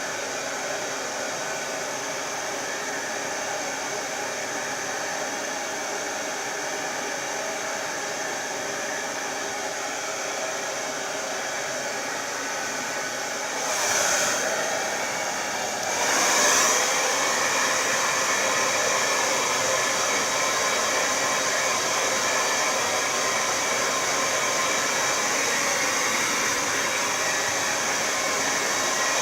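Babyliss Turbo Power 2200 hairdryer running steadily: a rush of air with a motor whine. It swells briefly about halfway through, then carries on somewhat louder.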